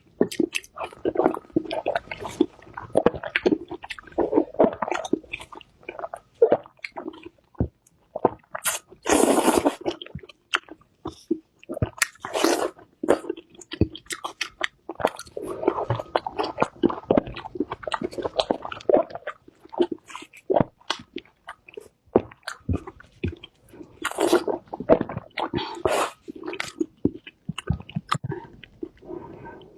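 Close-miked eating sounds: a person chewing and biting food, with irregular crunchy and wet mouth noises and a few louder bites.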